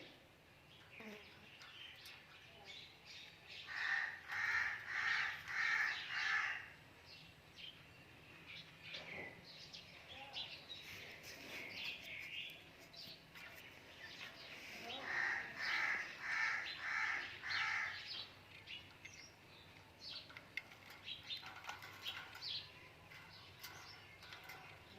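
Ringneck parakeet calling in runs of four quick, evenly spaced calls, loudest about four seconds in and again about fifteen seconds in, with shorter chirps in between.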